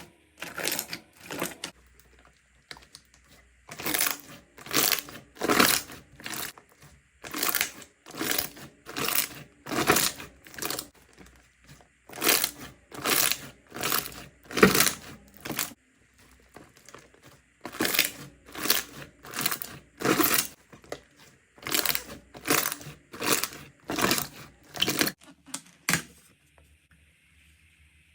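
Slime being squeezed and pressed by hand in a steady rhythm: a string of short, crackly squishes, about one and a half a second. There are pauses about 2 s in, around 16 s in and near the end.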